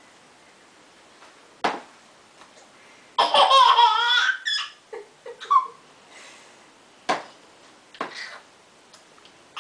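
A toddler's high-pitched, wavering squeal of laughter lasting about a second and a half, followed by a couple of short squeaks. A few sharp single knocks come before and after it.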